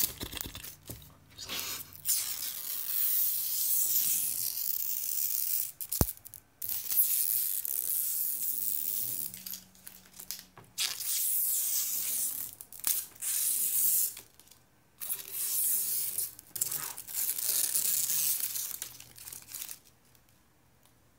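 Protective plastic film being peeled off a new monitor, a crackling hiss in several long pulls broken by short pauses, with one sharp click about six seconds in.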